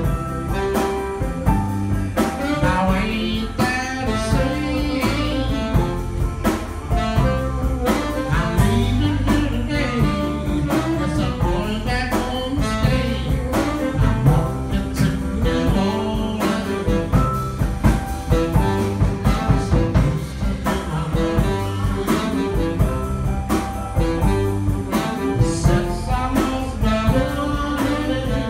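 Live rhythm and blues band playing, with tenor saxophone, drums, keyboard and electric bass.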